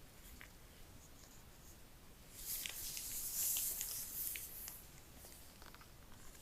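Handling of an iPhone 15 Pro's box and packaging: faint taps, then a couple of seconds of rustling, scraping paper and cardboard with small clicks starting about two and a half seconds in.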